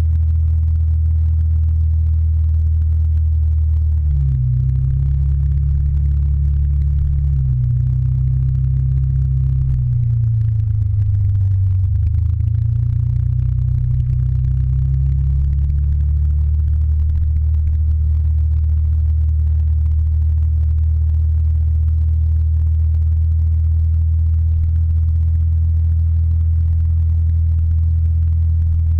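Motor scooter engine running as it is ridden, a steady low drone. Its pitch drops from about four seconds in as it slows, then climbs again as it picks up speed and settles back to a steady note.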